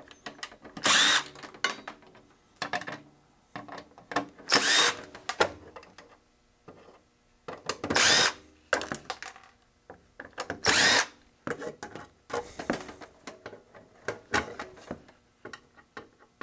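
Cordless drill/driver spinning in four short bursts of about half a second each, backing out the screws that hold circuit boards in a metal instrument chassis. Small clicks and rattles fall between the bursts.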